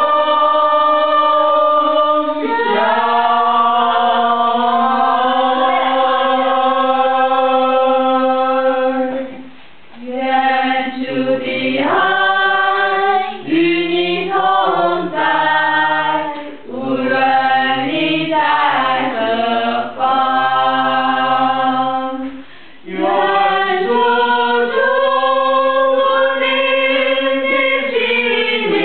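A choir singing a slow song in several voice parts, with long held chords and a lower part that joins in the middle phrases. The singing breaks off briefly twice between phrases.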